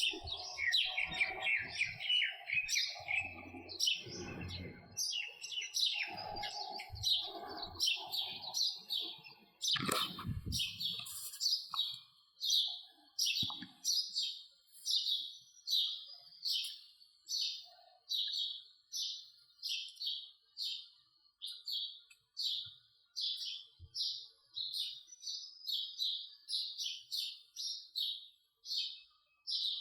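House sparrow chirping over and over. For the first ten seconds the chirps overlap with other calls and low background noise, ending in a low thump; after that comes a steady series of single short chirps, about two a second.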